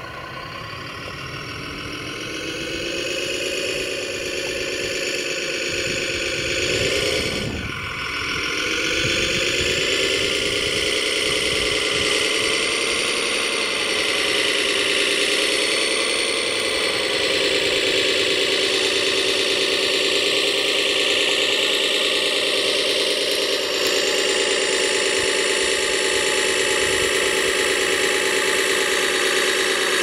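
Radio-controlled tracked dump truck driving over gravel: a steady motor drone whose pitch wavers up and down with the throttle, growing louder over the first ten seconds, with a brief dip about seven seconds in.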